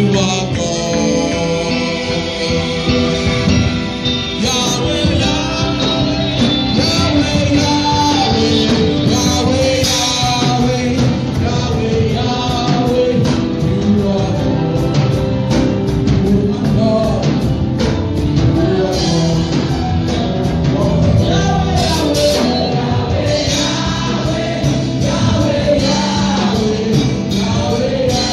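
Live gospel worship music: a band with keyboard and drums playing while a congregation sings along.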